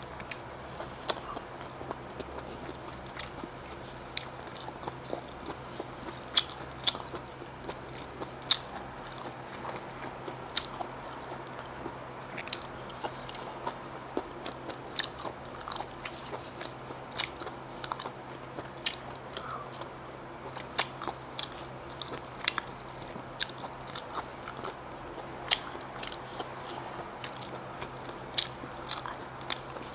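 Close-up eating of seasoned sea snails and shellfish: irregular sharp clicks and snaps of biting and chewing, several every few seconds, over a faint steady hum.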